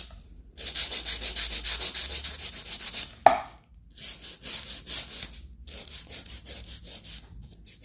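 Hand nail file scraping back and forth across the edge of a plastic nail tip, about four or five strokes a second in runs with short pauses, shaping the tip's sides. A brief sharp click about three seconds in.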